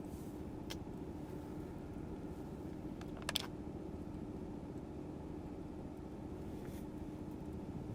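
Steady low background hum with a faint constant tone running through it, broken by a light click under a second in and a short double click a little after three seconds.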